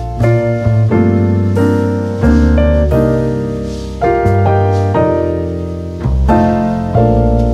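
Background music: a piano-led instrumental with a low bass line, its notes and chords changing about every second.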